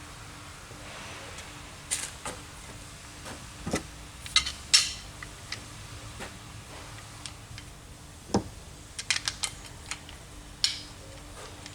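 Metal hand tools and engine parts clinking and knocking at irregular intervals as they are handled, with the loudest clatter a little before halfway and a quick run of clicks later on.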